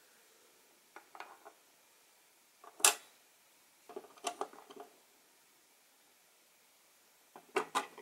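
Hard plastic parts of a Kracie Popin Cookin MokoWash toy washing machine being handled and fitted together on a tabletop: four short bursts of light clicks and clatter, the loudest a single sharp click just before three seconds in.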